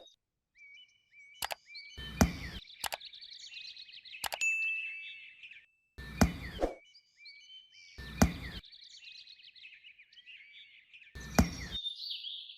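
Small birds chirping and twittering throughout, with four sharp knocks or clanks spread across it and a few lighter clicks between them.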